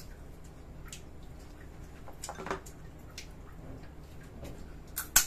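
Scattered small clicks and cracks of cooked crab shell being picked and broken apart, with a sharp crack near the end as loudest, over a steady low hum.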